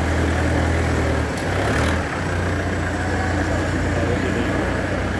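A machine running with a steady low hum, dipping briefly about two seconds in, over faint background voices.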